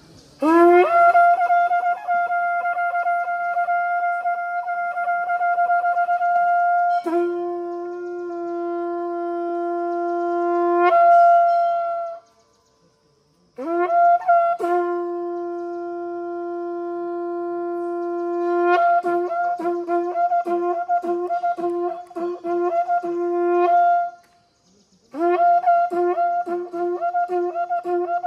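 A wind instrument holding long steady notes, one higher and one an octave below, each held for several seconds. It stops twice briefly, about twelve seconds in and again near the end.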